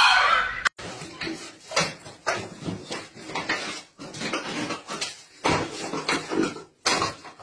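A short loud noise at the very start, then repeated irregular rattling and rustling as a Dalmatian puppy paws and pulls at a toilet-paper roll on its wall holder, tearing paper loose.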